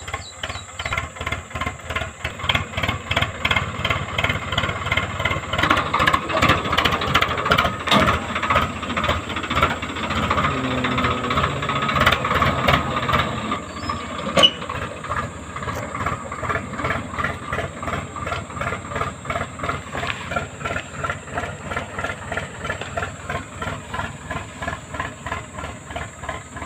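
Tractor diesel engine running under load while pulling a reversible mouldboard plough through the soil, with an even pulsing beat. It grows louder as it comes close and eases off toward the end, with one sharp clank about halfway through.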